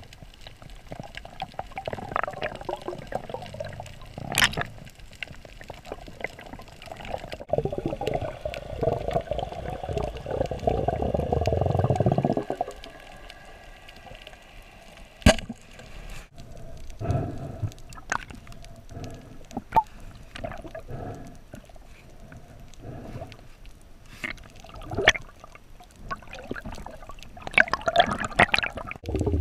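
Underwater sound as a spearfisher swims over a reef: water swishing and gurgling against the camera in surges, one long surge about a third of the way in, with a few sharp clicks scattered through.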